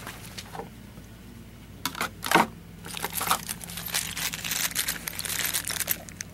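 A small clear plastic bag of screws being handled, with a few knocks about two seconds in, then the bag crinkling in the hand for the last few seconds.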